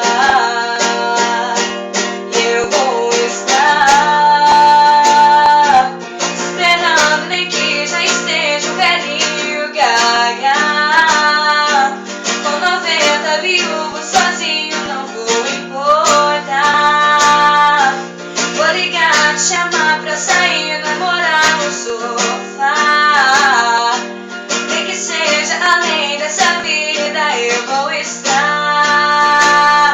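A woman singing a Brazilian sertanejo song with a strummed guitar accompaniment.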